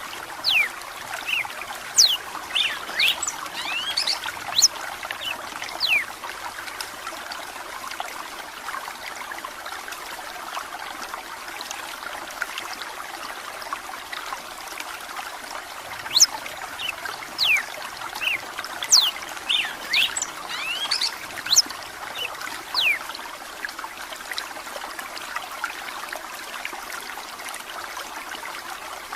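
Red-cowled cardinal singing in two bouts of quick, sharp, falling whistled notes, one in the first six seconds and another from about halfway through, over a steady trickle of running water.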